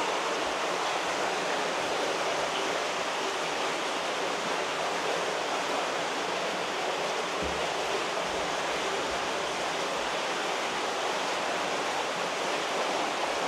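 Steady rush of running water in koi farm holding tanks, an even noise that holds without a break.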